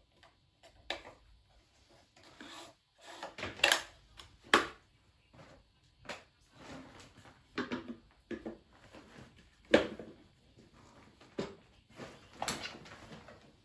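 Irregular knocks, clicks and clatter of objects being handled and set down, with a few sharp loud knocks.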